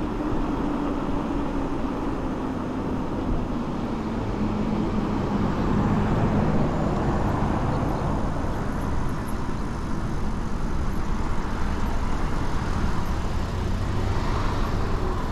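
Road traffic: cars passing in the next lane, a steady rumble of engines and tyres on the road.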